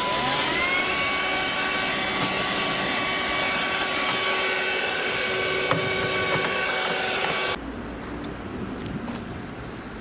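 Handheld vacuum cleaner switched on, its motor whine rising in pitch in the first second, then running steadily with a high whine over a rush of air as it vacuums an entry-step mat. It cuts off suddenly about three quarters of the way through, leaving a quieter low background.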